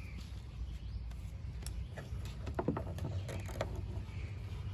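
Small plastic clicks and light knocks as tail-lamp bulb sockets and their wiring connector are handled and fitted, a quick cluster of clicks a little past the middle, over a low steady hum.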